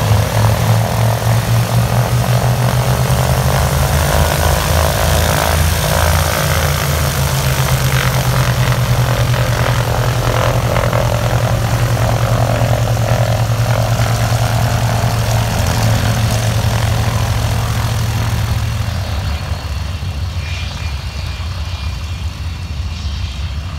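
A PBY Catalina's two Pratt & Whitney R-1830 Twin Wasp radial engines running at taxi power as the flying boat taxis past, a steady propeller drone. The drone gets quieter about three-quarters of the way through as the aircraft moves away.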